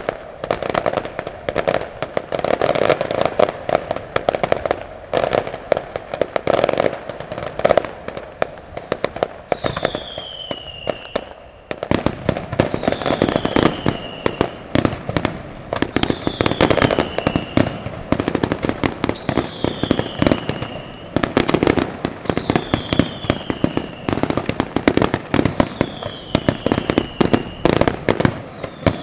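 Aerial fireworks display: a dense, rapid crackling and popping of bursting shells and stars. From about a third of the way in, a falling whistle repeats roughly every three seconds over the crackle.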